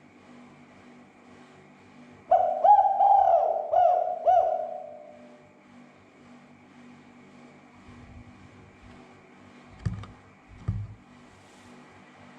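Spotted dove cooing: one phrase of several rolling coo notes, starting about two seconds in and trailing off over about three seconds. Two dull thumps follow near the end.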